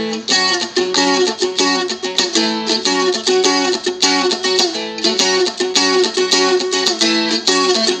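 Seagull Merlin, a dulcimer-style fretted folk instrument, strummed in quick steady strokes through a rock chord progression that changes chord every second or so.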